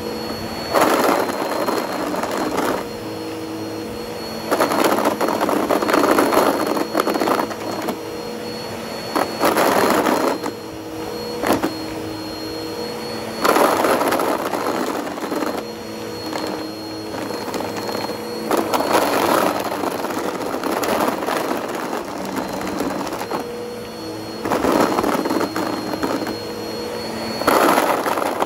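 Bissell CleanView upright vacuum running with a steady motor hum and a high whine. About seven times, every few seconds, it swells into a louder crunching rattle as the brush head passes over pencil-cap erasers and sucks them up.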